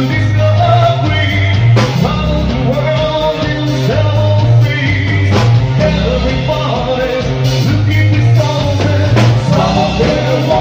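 Live rock band playing: a man singing into a microphone over electric guitar, with a steady, pulsing bass line.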